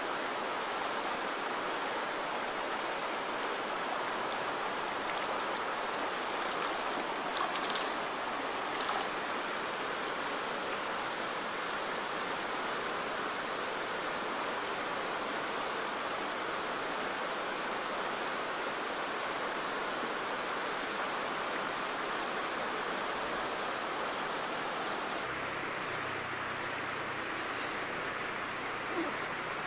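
River water running steadily over shallows, with a short high chirp repeating about every second and a half. About 25 seconds in, the water sound drops away and a faster, continuous high chirping carries on.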